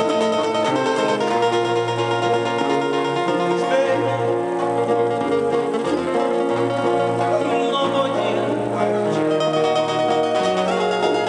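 Live bolero band playing an instrumental passage: acoustic guitars picking and strumming over an upright bass line.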